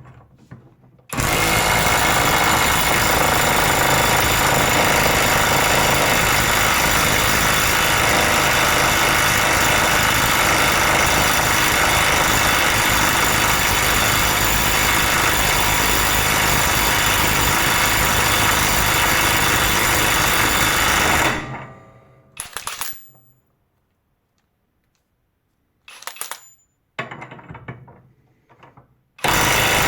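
Parkside Performance PPDSSA 12 A1 12V cordless impact wrench hammering on a bolt nonstop for about twenty seconds, being run continuously to heat the tool toward its over-temperature cutoff. It stops, gives a few short bursts, then starts hammering again near the end.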